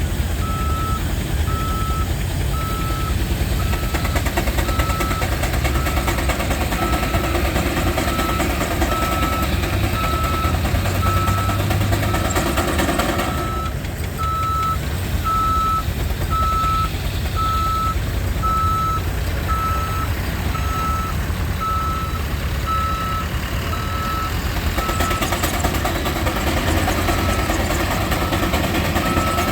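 A vehicle's reversing alarm beeping steadily, about once a second, over a continuous low rumble of running machinery.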